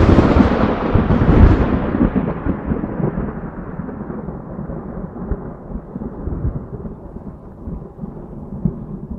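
A thunderclap: a sudden loud crack that rolls on as a rumble, fading slowly over several seconds with the high end dying away first.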